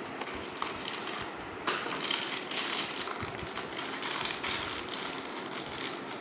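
Packaging of a new motorcycle timing chain set being opened by hand: a run of crinkling and small clicks, getting busier about two seconds in.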